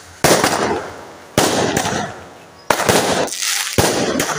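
Aerial fireworks bursting overhead: four sharp bangs a little over a second apart, each followed by a crackling spray that fades away.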